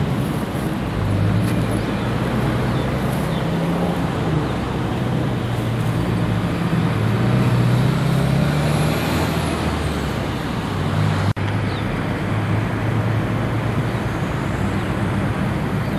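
Road traffic going by: a steady run of engine and tyre noise that swells and eases as vehicles pass.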